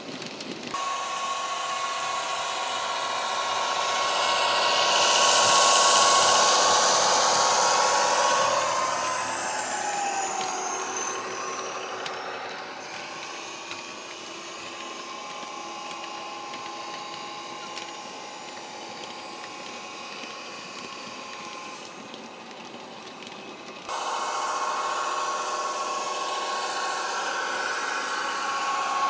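Diesel engine sound from the ESU model locomotive's factory-fitted sound decoder, played through its small on-board speaker, mixed with the model wagons running on the track. It is loudest as the train passes about six seconds in, with the engine note dropping a few seconds later. It then runs quieter and steps up sharply again about 24 seconds in.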